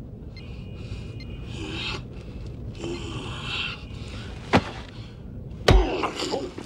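Low scuffing and rubbing, then a sharp knock about four and a half seconds in and a heavy thud near the end: a fist punch landing on a head.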